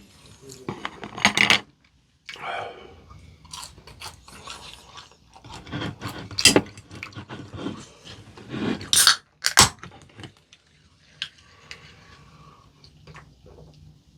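Close-miked eating sounds: a person chewing, with irregular crunches and a few sharp clicks of utensils against dishes.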